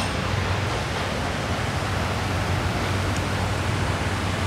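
Steady rushing noise of a running shop fan, with a low steady hum and a faint tick about three seconds in.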